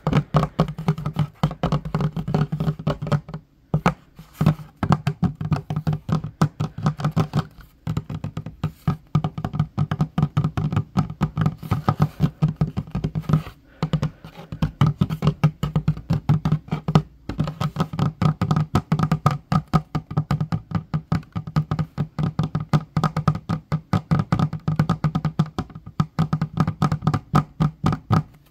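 Fingertips and fingernails tapping fast on a wooden tabletop, many quick taps a second in a dense, uneven patter, broken by a few brief pauses.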